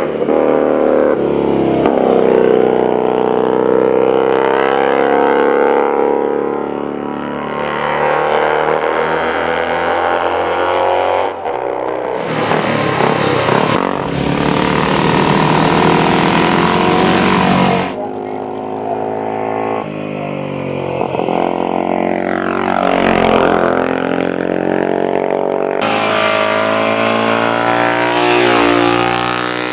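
Racing motorcycle engines revving hard and passing, their pitch climbing and dropping through gear changes and fly-bys. The sound changes abruptly several times, like splices between separate passes.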